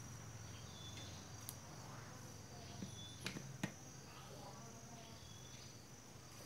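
A few light metallic clicks of a hand tool working the bolts on a knapsack sprayer's metal pump housing as it is tightened back together, the sharpest about three and a half seconds in, over a faint steady low hum and a steady high-pitched whine.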